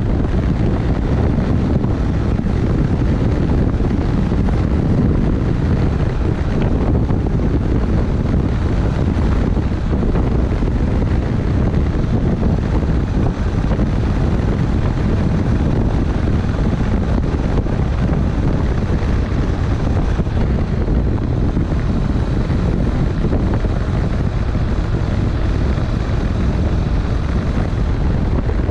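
Honda NC700X's parallel-twin engine running at a steady cruise, mixed with heavy wind buffeting on an unshielded action-camera microphone.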